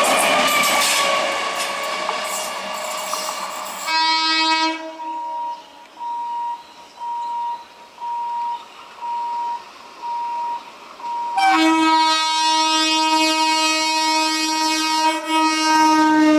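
A passing train's wheels clatter over the rails for about four seconds, followed by a short train horn blast. An electronic beep then repeats about once a second, and near the end a long, steady train horn blast begins.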